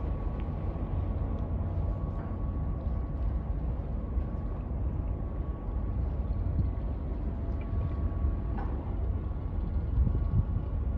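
Steady low rumble of a large car ferry's engines as it manoeuvres toward its berth, with a faint steady hum above it.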